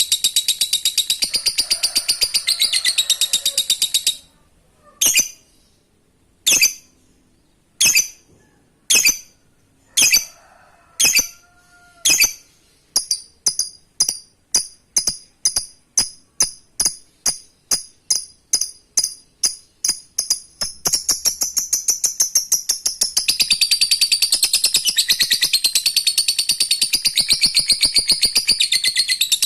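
Lovebird ngekek: a long, fast, high chattering trill. About four seconds in it breaks into single sharp chirps about a second apart, which speed up to about three a second and then run back together into the continuous rapid trill for the last third.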